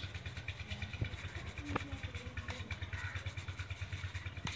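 A small engine chugging steadily and evenly in the background, under the faint rasp of coarse broken wheat being shaken in a round metal sieve over a steel tray.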